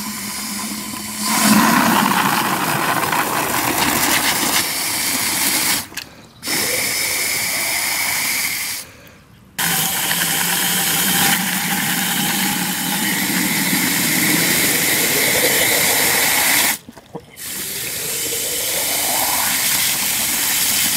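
Water poured in a thin stream from a plastic bottle into the narrow neck of a dried bottle-gourd container, in several takes broken by short gaps. Near the end the filling sound rises in pitch as the gourd fills to the brim and water splashes over its mouth.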